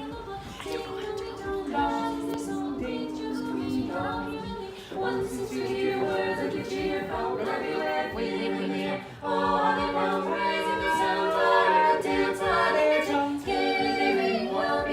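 Background music: an a cappella vocal group singing a Christmas song, several voices in harmony with no instruments.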